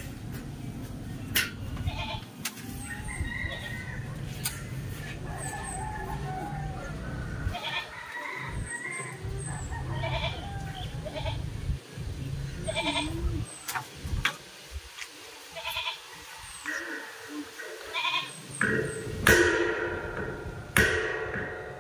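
Goats bleating now and then in short quavering calls, with sharp knocks scattered through.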